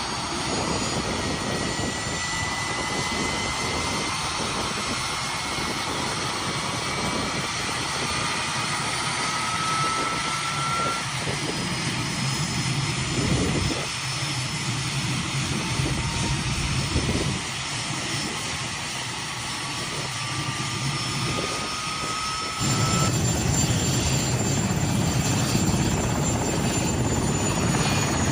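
Helicopter engine and rotors running steadily, getting louder with a heavier low rumble about 23 seconds in.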